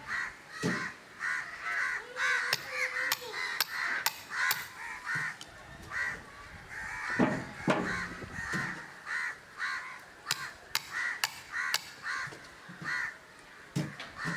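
Birds calling over and over in short, rough calls, about two a second, with a few sharp clicks and knocks among them.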